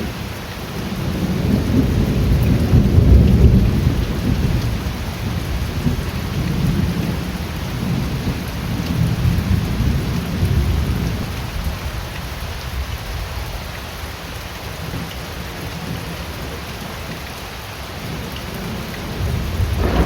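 Steady rain falling, with the deep rolling rumble of thunder underneath that swells to its loudest a few seconds in, rises and falls in waves, and dies away near the end.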